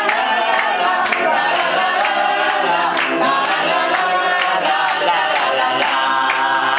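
A group of voices singing a corrido together, with sharp clicks keeping a steady beat of about two to three a second.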